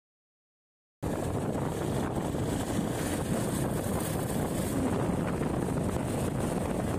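Wind rushing over the microphone of a camera on a moving motorcycle, with engine and road noise underneath. It cuts in abruptly about a second in, after silence, then stays steady.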